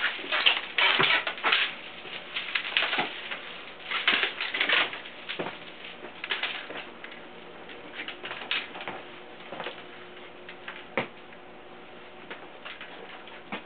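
Irregular clattering, tapping and rustling of objects being handled and moved about, busiest in the first few seconds and then thinning to occasional knocks.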